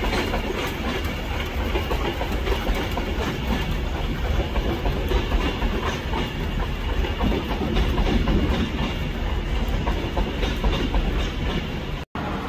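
Train running past at a station, a steady heavy rumble of wheels on the rails. The sound cuts out for an instant near the end.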